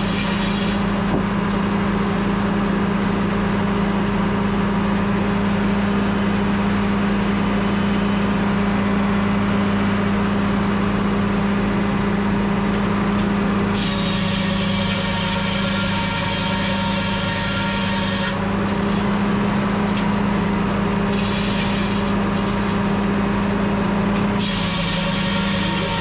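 Sawmill's large circular saw blade and its belt-driven power unit running with a steady low drone. About halfway through, a higher ringing whine joins in, drops out briefly and returns.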